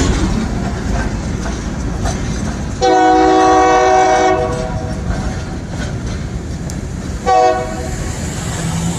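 Train horn sounding a chord of several notes: one long blast of about a second and a half, then a short blast about three seconds later, over a steady low rumble.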